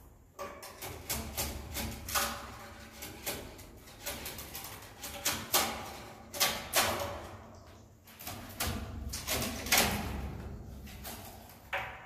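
Irregular scraping and clicking of a long-pole scraper prying swiftlet nests off wooden ceiling joists. There are quick runs of sharp clicks and a few louder rasping strokes.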